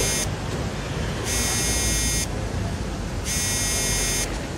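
Harsh electronic buzzer tone pulsing about a second on and a second off, over the low rumble of passing vehicles.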